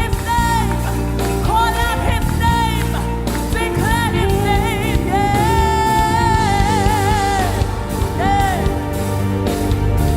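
Live gospel praise-and-worship music: a singer's voice sliding and wavering through long held notes over a band playing steadily underneath.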